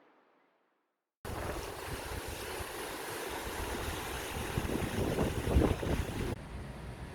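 Wind buffeting the microphone at the seaside, with waves washing; it cuts in suddenly about a second in, peaks in gusts past the middle and drops a little near the end.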